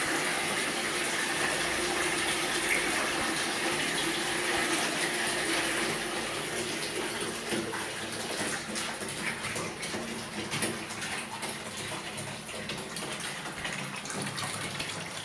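Pump-fed water spraying from a shower hose into a bathtub. About six seconds in the pump is switched off and the flow dies away to uneven splashing and dripping.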